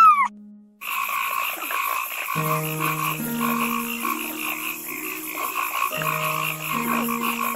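The end of a kitten's mew, then after a short gap a frog croaking continuously in a rapid pulsed trill.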